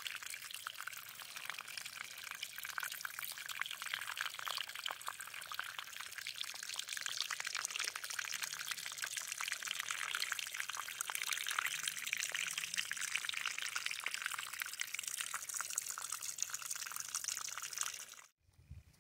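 Water trickling and splashing down a wet, algae-covered rock face, a steady spatter that cuts off suddenly near the end.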